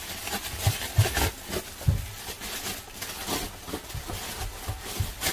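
Irregular rustling with light knocks and a few low thumps: things being handled at a kitchen counter.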